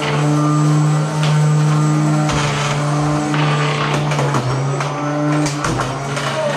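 Electric motors of small combat robots whining steadily, with a cluster of sharp clattering knocks about four to five seconds in as the robots collide.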